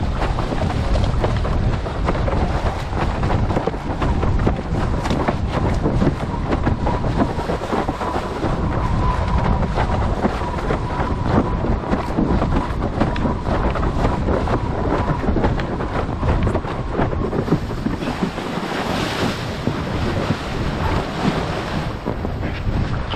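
Strong wind buffeting an action-camera microphone, with water rushing and splashing, as on a windsurf board under sail.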